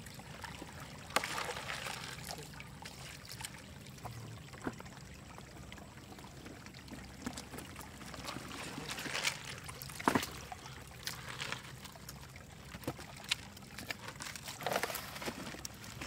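Shallow muddy water splashing and draining through a plastic mesh basket as it is scooped along the bottom, with a steady trickle and a few sharp splashes or knocks.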